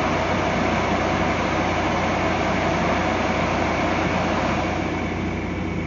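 Repaired transformer cooling fan's induction motor running steadily on its dry-run test: a steady hum under the even rush of air from the fan blade.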